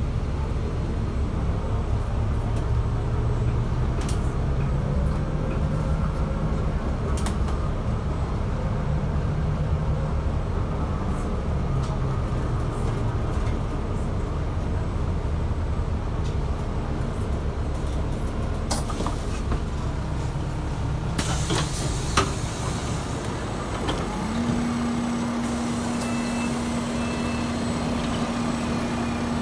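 New Routemaster diesel-electric hybrid bus running as it drives and draws up, heard from beside its doors, with a low drive hum that rises and falls. A little over two-thirds of the way in there is a sharp hiss of air as it halts and the doors open, and after that a steady low hum while it stands.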